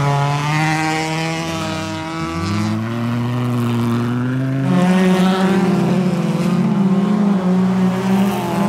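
Folkrace cars' engines revving hard on a dirt track. The pitch drops and climbs again with gear changes about two seconds in, then jumps higher and louder about five seconds in as the engines come on full throttle.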